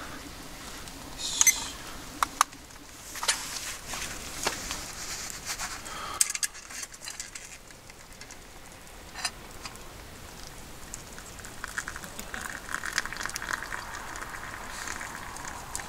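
A small wood fire crackling, with scattered clinks and knocks as a stainless steel pot and its lid are handled. Near the end, hot water is poured from the pot into a wooden cup for a couple of seconds.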